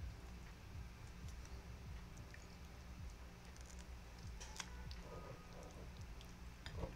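Faint scattered clicks and small handling sounds over a low, steady hum.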